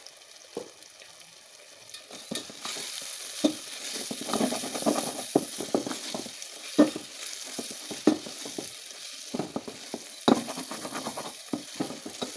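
Spiced onion-tomato masala sizzling as it fries in oil in an aluminium pot, stirred with a spatula that scrapes and knocks against the pot. Quiet at first; the sizzle and stirring pick up about two seconds in. This is the sautéing stage, the masala being cooked down in oil before water goes in.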